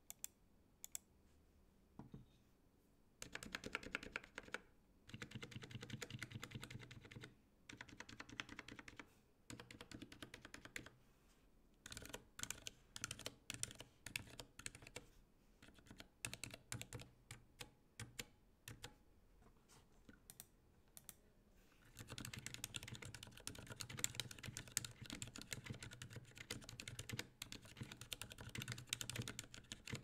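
Typing on a NovelKeys NK65 Entry mechanical keyboard fitted with stock Cherry MX Silent Black linear switches and PBT keycaps: quiet, damped keystrokes. A few isolated presses come first, then short bursts, spaced single presses in the middle, and steady fast typing over the last third.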